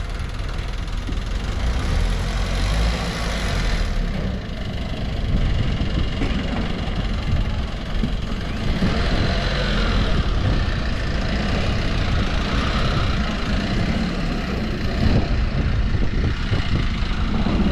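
An engine running steadily with a low rumble and a constant noisy haze over it.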